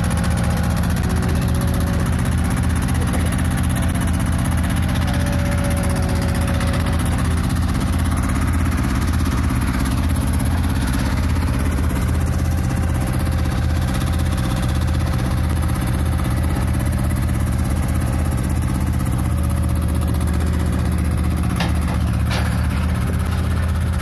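Small road roller's diesel engine running steadily, with a couple of light knocks near the end.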